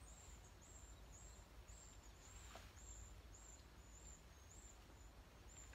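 Near silence: faint outdoor ambience, with a faint high-pitched chirp repeating about twice a second.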